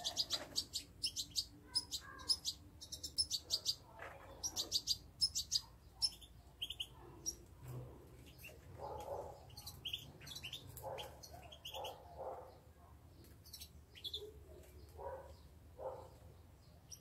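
A flock of European goldfinches twittering and calling: fast runs of high chirps, busiest in the first several seconds, then more scattered calls.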